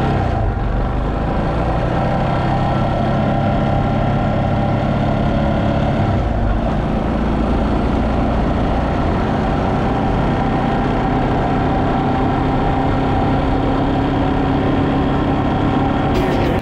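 Yamaha Serow 250's single-cylinder engine running steadily on the move, with a brief dip in revs about six seconds in.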